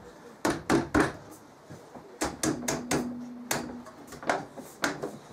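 Hand knocking a black metal Ikea Lerberg trestle leg down into a snug slot between pine bracing strips on a plywood desktop: about ten sharp, irregularly spaced knocks.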